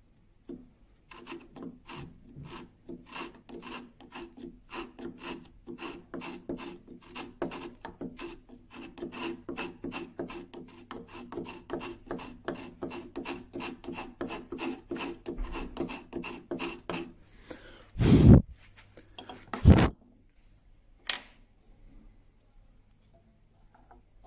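A small file rasping the wooden body of a plane inside its mouth opening in quick, short strokes, about three or four a second, easing the recess so the adjustable mouth piece sits flush. Near the end the strokes stop, and there are two loud knocks a couple of seconds apart.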